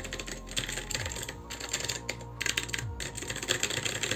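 Rapid keystrokes on an ALG K8614 mechanical keyboard with clicky blue switches, typed in quick runs with short pauses between them.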